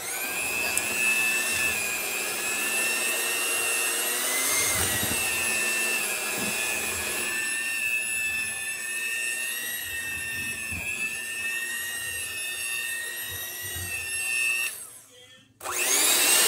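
Electric hand mixer running, its beaters working banana bread batter: a steady motor whine. Near the end it stops briefly, then runs again for about a second before cutting off.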